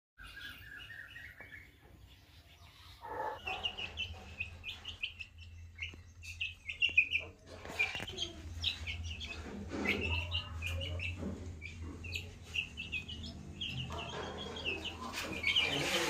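Young Aseel chickens peeping: many short, high chirps in quick succession, on and off.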